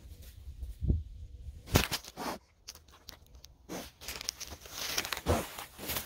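Grass rustling and crunching right at the microphone, with a few sharp knocks, the loudest about two seconds in, as a mini potbelly pig roots about next to the camera.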